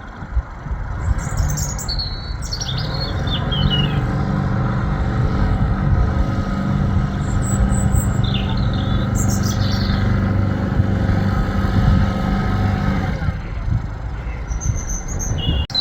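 A narrowboat's engine running steadily at a low, even pitch, easing off near the end, with birds chirping now and then over it.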